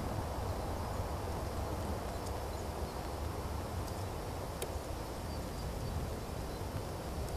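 Steady outdoor background noise with a low rumble and a couple of faint clicks, about two and four and a half seconds in; no deer call is heard.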